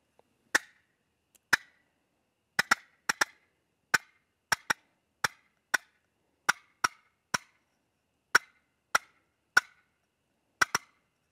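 Wooden turkey box call worked in short, sharp strokes to imitate a hen turkey cutting: about twenty loud clucks in an irregular series, some in quick pairs.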